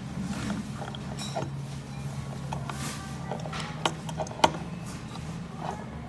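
Wooden pen box being opened by hand, giving a few light wooden clicks and knocks, the sharpest about four and a half seconds in.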